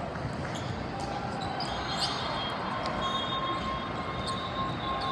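Echoing sports-hall din with scattered thumps of volleyballs being hit and bounced on the surrounding courts, one sharper smack about two seconds in. A thin steady tone sounds through the second half.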